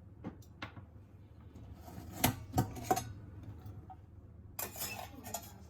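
Metal clinks of a stovetop pressure pan's lid being handled and opened. There are a few sharp clinks, three close together in the middle, then a short scraping rustle near the end.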